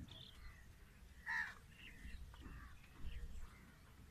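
Crows cawing in a string of short calls, the loudest about a second in, over a faint low rumble.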